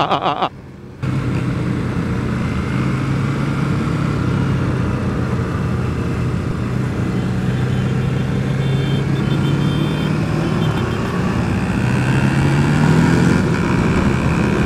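Aprilia Tuareg 660's parallel-twin engine running steadily at riding speed on the move. The engine note comes in about a second in and rises a little near the end.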